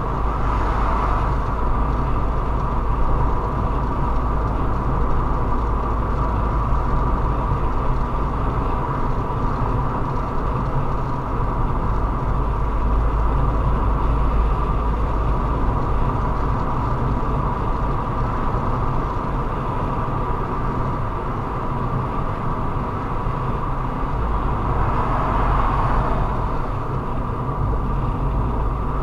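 A car being driven at city speed, heard from inside the cabin: a steady low rumble of engine and tyre noise, with a brief swell of louder hiss about a second in and again near the end.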